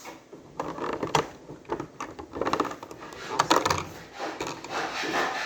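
Small plastic model-kit parts being handled: irregular clicking and clattering taps in several quick clusters, with rustling between them.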